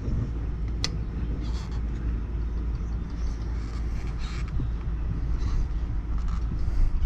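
Steady low outdoor rumble with a sharp click a little under a second in and scattered light scrapes and rattles of hands and tools working on an AC condenser unit that is switched off.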